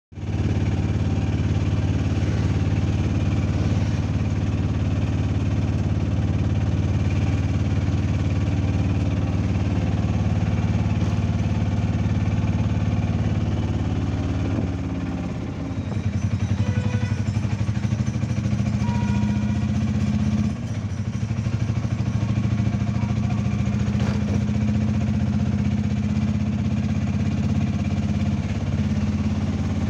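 Auto-rickshaw engine running steadily while driving, heard from aboard the auto. Its note dips briefly about halfway through and again about two-thirds of the way through.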